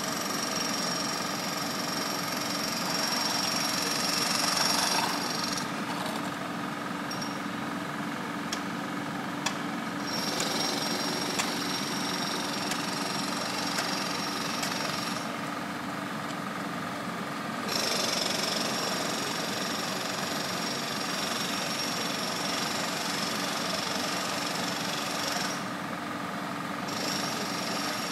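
Road works machinery running: a steady engine under a harsher machine noise that cuts out for a few seconds three times, about five, fifteen and twenty-five seconds in.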